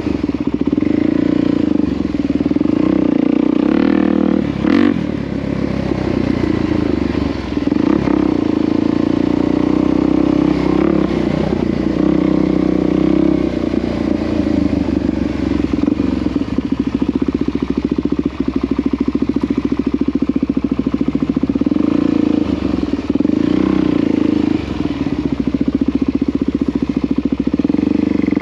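Small vehicle engine running continuously at a fairly steady speed, its pitch wavering slightly, with a few brief dips in loudness.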